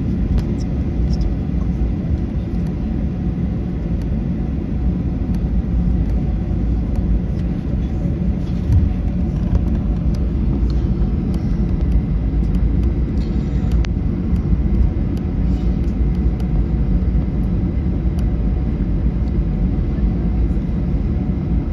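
Steady low rumble inside the cabin of a Boeing 737 taxiing, from its running engines and its wheels rolling over the taxiway, with a few faint clicks.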